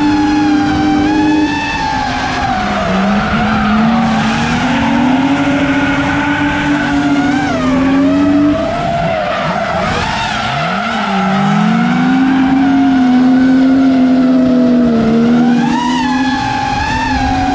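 Drift cars' engines held at high revs, the pitch rising and falling as the drivers work the throttle, with tyres squealing through a sustained tandem drift.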